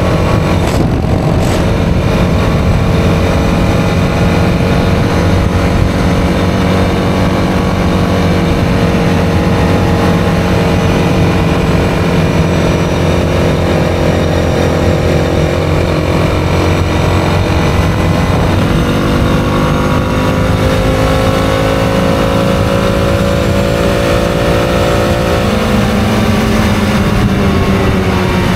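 ATV engine running hard at road speed under fairly steady throttle, with heavy wind rush on the microphone. About two-thirds of the way in the engine note steps up, then slowly sags, and it drops near the end.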